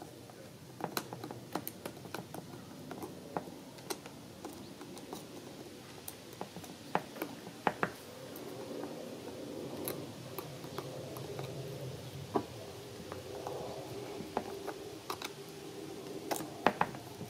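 Small screwdriver clicking and scraping on the tiny screws of a spinning reel's body as they are driven in, in scattered light ticks. A faint steady hum comes in about halfway through.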